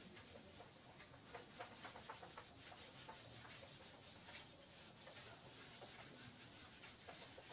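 Faint rubbing of a cloth wiping marker writing off a whiteboard, in quick, irregular strokes.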